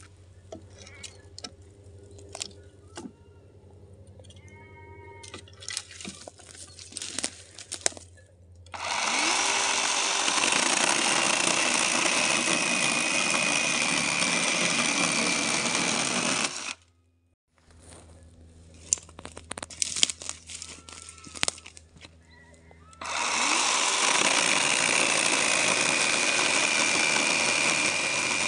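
Battery-powered chainsaw cutting through dry branch wood in two long runs, about nine seconds in and again about twenty-three seconds in, each a steady high whine of motor and chain. Between the cuts there are only quieter scattered clicks.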